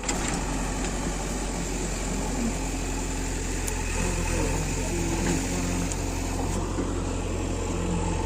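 Diesel engine of heavy earthmoving machinery running steadily with a low, even drone.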